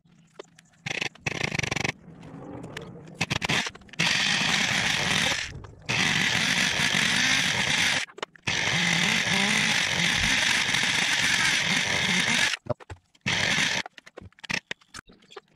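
Thunder Tiger Pro-18BXS two-stroke nitro engine of an RC monster truck, first start after five years unused: it catches in short bursts, then runs with a steady high buzz, cutting off abruptly several times, the last few near the end.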